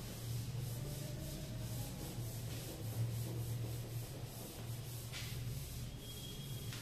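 Faint scratchy rubbing of a pen or marker writing on a surface, over a steady low electrical hum.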